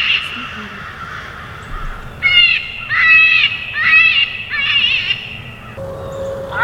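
A run of harsh, cawing calls, a few at the start, then a pause, then about seven in quick succession from about two seconds in. A steady tone begins shortly before the end.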